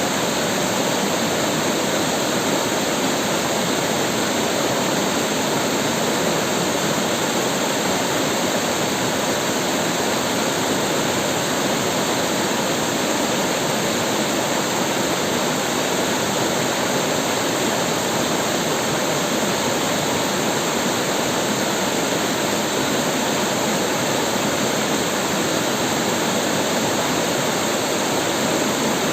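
River water flowing and rushing over rocks, a steady, even rush.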